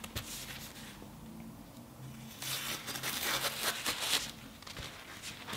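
Thick kitchen paper towel rustling and crinkling in the hands, in a burst of rough strokes starting about two seconds in and lasting about two seconds, with a few fainter rustles near the end.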